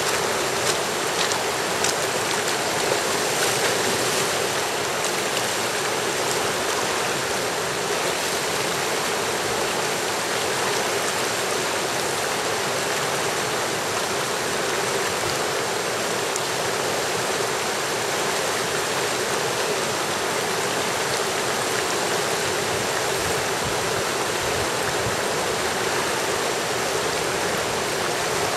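Fast river rapids rushing steadily, a dense, unbroken wash of whitewater.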